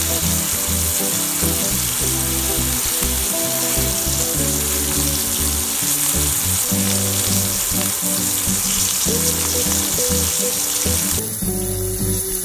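Bone-in beef steak sizzling in a hot ridged grill pan as garlic-herb butter melts into the fat around it, a steady frying hiss. The sizzle drops away abruptly about eleven seconds in, with background music underneath throughout.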